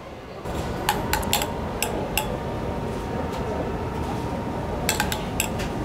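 A metal spoon clinking lightly against a stainless saucepan and a small ceramic cup while thick sauce is ladled out. There is a run of light clinks in the first couple of seconds and another few near the end, over a steady room hum.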